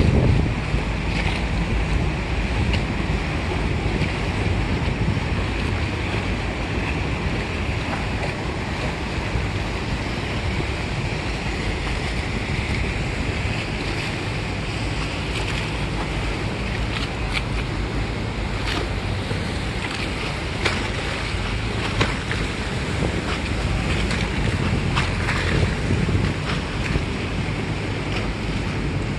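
Motorboat engine running steadily, with water washing along the hull and wind buffeting the microphone.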